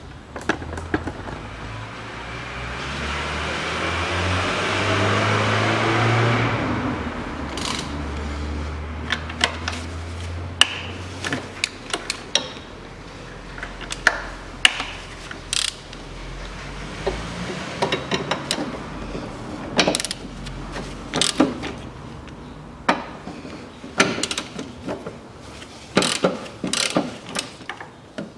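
Hand ratchet wrench clicking in short runs, with sharp metal clinks of tools, as the bolts of the timing-side engine mount are loosened. A few seconds in, a louder noise with a rising hum swells for about four seconds and fades.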